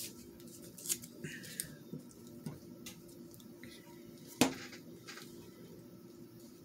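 Paper scraps rustling and being handled and pressed onto a card, with scattered soft clicks and one sharper pop about four and a half seconds in, from the metal desk flexing under a pressing hand.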